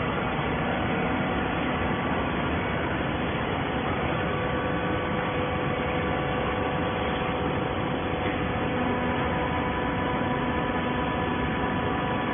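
Horizontal hydraulic baling press running: a steady machine hum with several faint, even tones over constant noise.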